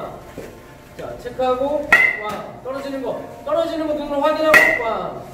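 A baseball bat striking tossed balls in batting practice, twice about two and a half seconds apart, each hit a sharp crack with a short ringing ping typical of a metal bat. A drawn-out shouted call comes just before each hit, timing the toss.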